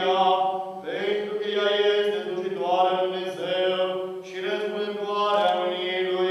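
Orthodox church chant: voices singing a slow melody over a steady held drone note.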